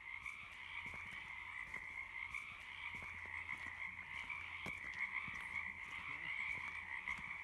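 Many frogs calling at once in a dense, unbroken chorus.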